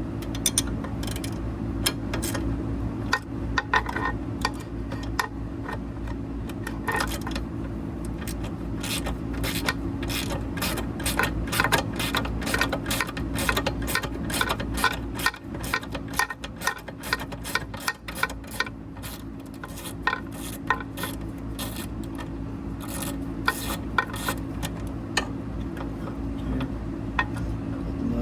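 Hand ratchet wrench clicking in quick runs as the top bolt of a bus seat shock is loosened, with metal scraping and clinking between runs, over a steady low hum.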